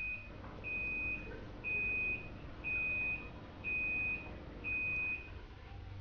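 Sharp ES-W80EW-H top-load washing machine beeping its end-of-cycle signal, the wash having finished. A steady high beep sounds about once a second, six times, then stops about five seconds in.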